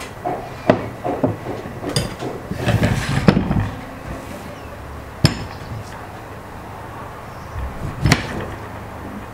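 Sharp knocks and clinks of a glass dish, a glass saucer and a cutting board being set down on a table, with a busy run of them a few seconds in. Near the end a kitchen knife cuts through a lemon and knocks against the board.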